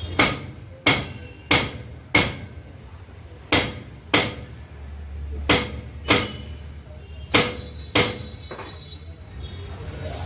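A hammer striking metal: about a dozen sharp, ringing blows, mostly in pairs, with a low steady hum underneath.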